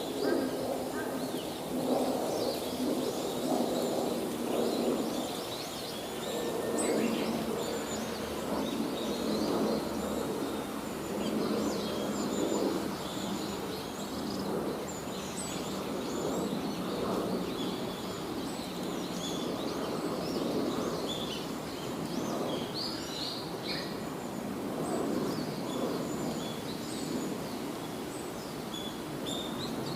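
Outdoor ambience: small birds chirping and calling, short scattered calls throughout, over a steady background noise.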